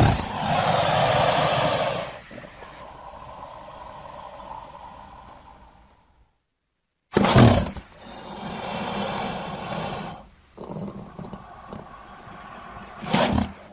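Crocodile calls: two long, noisy calls, each starting loud and fading away, separated by about a second of silence, with a short loud burst near the end.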